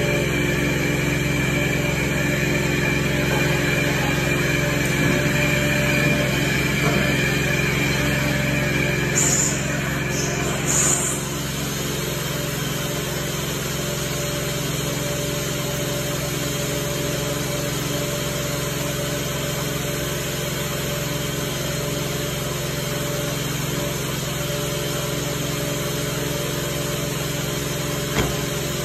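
Steady engine-like drone of carpet and tile cleaning extraction equipment running. A couple of short hisses come about ten seconds in, and after them the drone settles slightly quieter.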